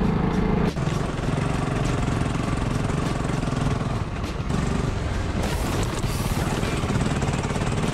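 Adventure motorcycle engine running under way on a rough gravel track, picked up by a helmet camera, with a steady chattering drone.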